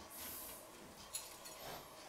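Quiet kitchen handling: a chef's knife lifting a cut slice of meat off a wooden cutting board and over to a plate, a soft scraping hiss at first and one light click about a second in.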